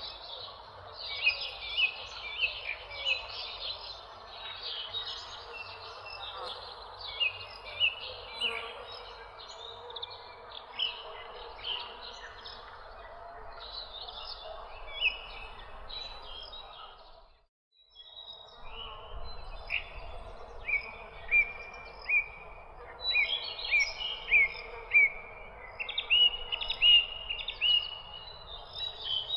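Several small birds chirping in quick, short, high notes, some in fast runs, over a steady background hiss. All of it cuts out for about a second about two-thirds of the way through, then resumes.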